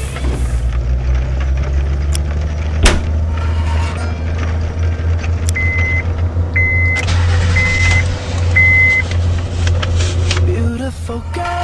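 Honda Accord parts working as a chain reaction, over a steady low mechanical hum. Two sharp clicks come a few seconds in, then four short electronic beeps about a second apart from the car's dashboard.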